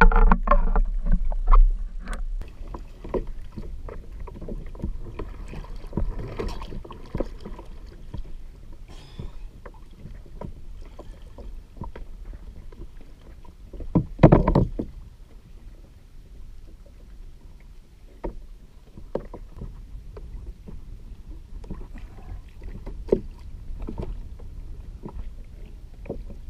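Water sloshing and splashing around someone standing in shallow water at the side of a plastic kayak, with scattered knocks and clicks of handling against the hull. A louder burst of splashing and knocking comes about halfway through.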